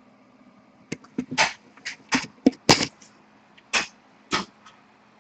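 A quick run of about ten short clicks and scratchy rustles over a steady low hum, beginning about a second in and stopping about four and a half seconds in.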